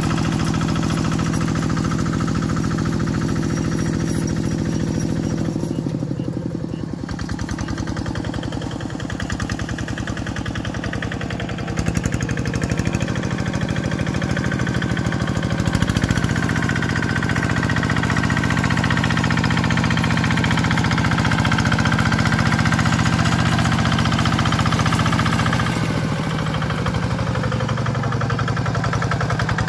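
Kubota RD65 single-cylinder diesel engine of a walk-behind hand tractor running under load while working wet paddy mud, a steady chugging with a brief dip in its note about six seconds in.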